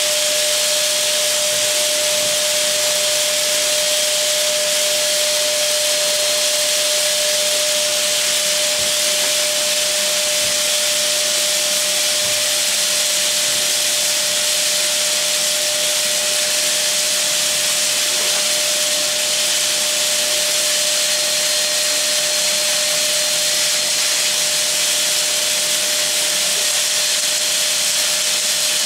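Dirt Devil Power Reach multi-cyclonic bagless canister vacuum running steadily on carpet: a constant rushing hiss of air with a steady motor whine over it, and a few faint knocks of the wand.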